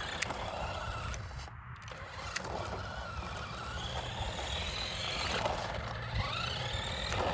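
Electric motor of a Revell Control Desert Rat 1:10 RC car whining as the car is driven at full throttle, which is the only speed it has, forward and in reverse; the whine rises in pitch several times as the car speeds up and changes direction.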